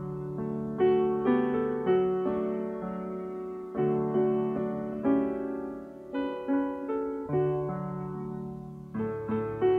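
Piano playing a slow, gentle piece, with notes and chords struck about once a second and left to ring out.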